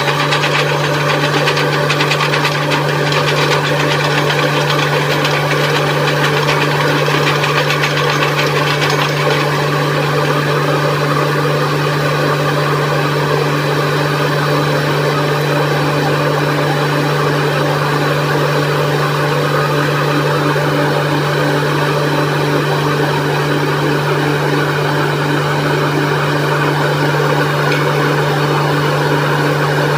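Truck-mounted borewell drilling rig running: a loud, steady diesel drone, with a fast rattle over roughly the first nine seconds.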